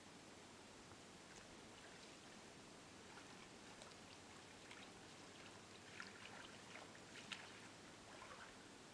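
Faint splashing and squelching of a black bear's feet in shallow standing water and mud, as a scatter of small splashes that gather about six to eight and a half seconds in, over a quiet hiss.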